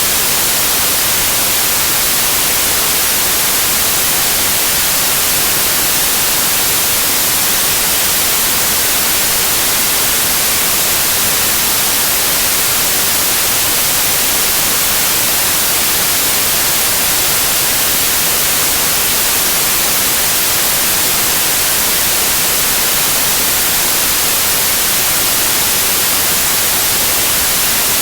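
Steady white noise like TV static: an even, unchanging hiss, strongest in the high end.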